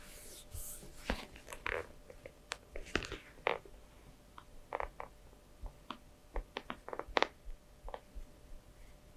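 A scatter of small, irregular clicks and taps, close up, some with a short ringing tone, coming thickest about three seconds in and again around seven seconds in.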